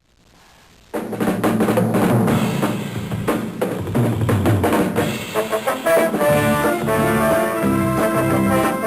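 Background music: a band intro that kicks in suddenly about a second in on drum kit, with held chords building up from about halfway.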